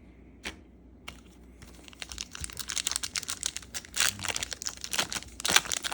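Crinkling and rustling of trading-card packaging and cards being handled. There are a couple of single clicks at first, then from about two seconds in a dense run of rapid crackles.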